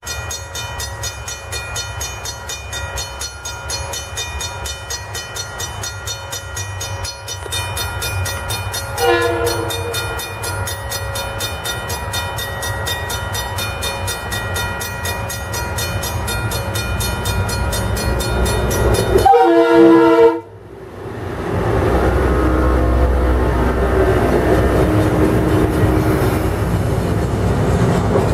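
A grade crossing bell rings steadily as a Metro-North M4/M2 electric multiple-unit train approaches. The train's Leslie S2M horn sounds a short blast about nine seconds in and a louder blast of about a second near the twenty-second mark. After that the train rolls in close by, and the rumble of its wheels and motors rises and stays loud.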